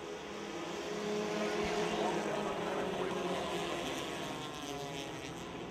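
A pack of Dirt Devil class compact race cars at speed on a dirt oval, many engines running at once. The sound swells as the pack passes about two seconds in, then eases off.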